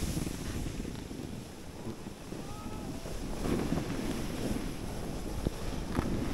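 Wind buffeting the microphone as it moves down a snowy slope: a steady low rumble and hiss.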